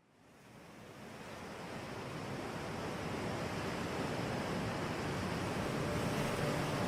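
A rushing, wind-like sound effect fades in from silence and swells steadily louder, a build-up of noise with no clear tone.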